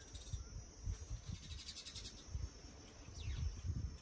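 Faint outdoor ambience: a steady high insect drone with a brief pulsing trill about a second in, a few soft bird chirps, and a low uneven rumble.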